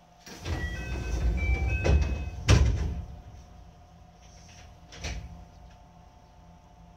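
A stopped electric train's sliding passenger doors closing: a rumbling slide with a few short high tones, ending in a loud thud about two and a half seconds in. A lighter knock follows about five seconds in.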